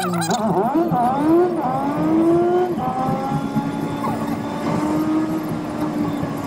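Perodua Kelisa's small three-cylinder engine accelerating through the gears, heard from inside the cabin: its pitch climbs and drops back at each of a few gear changes, then holds nearly steady at cruising speed. It has a buzzy note that sounds like a motorcycle.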